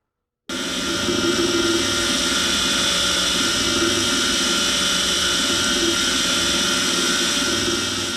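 Powered wire wheel running steadily as it cleans the bike's subframe bolts. It starts suddenly about half a second in and cuts off suddenly at the end.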